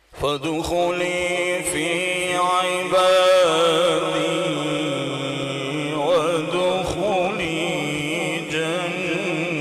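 Male qari reciting the Quran in melodic tajweed style through a microphone, drawing out long held notes with wavering ornaments. The voice starts abruptly after a pause.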